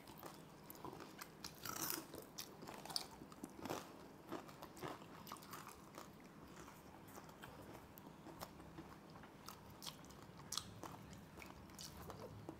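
A person chewing and biting crispy fried food close to the microphone, with soft, irregular crunches.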